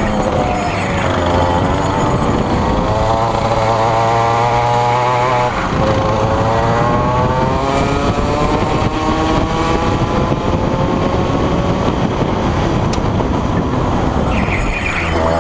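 Rotax Max 125 cc two-stroke kart engine at racing speed, heard onboard. Its pitch rises and falls with the throttle: a long climb, a sharp drop about five and a half seconds in, another long climb, and a fresh rise near the end.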